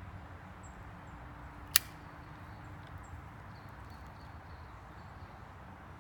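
A Zippo lighter's lid snapping shut: one sharp click nearly two seconds in, over faint steady background noise.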